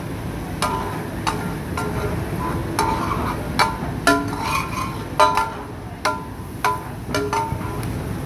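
Metal spatula striking and scraping a large steel tawa griddle. The strikes come irregularly, about one or two a second, and each rings briefly, over a steady hiss.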